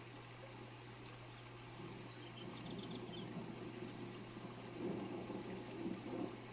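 Steady rain ambience, a constant hiss with a low rumble that swells a couple of seconds in. A short run of faint bird chirps comes about two to three seconds in.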